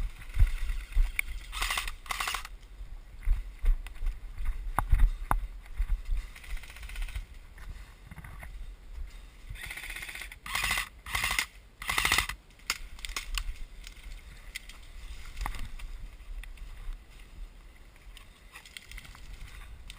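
Movement noise of a player advancing on foot: footsteps and swishes of brush or leaves, with small knocks of gear. Wind rumbles on the microphone through the first several seconds.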